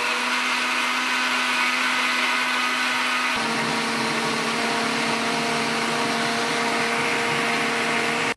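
Countertop jug blender running steadily at full power, pureeing chunks of tomato, fresh pepper and onion into a smooth liquid. Its motor pitch drops slightly about three and a half seconds in.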